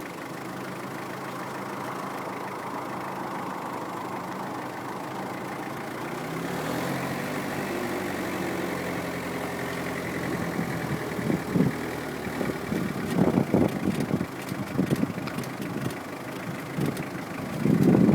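Peugeot car idling, with a noise brought on by pressing and releasing the brake pedal. The engine hum shifts in pitch about six seconds in. Irregular louder bursts of noise come in the second half.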